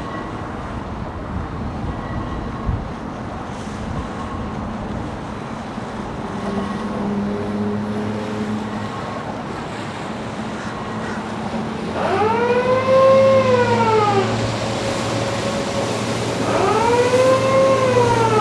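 Two rising-and-falling siren wails, each lasting about two seconds and about four seconds apart, over a steady low hum that starts with the first wail.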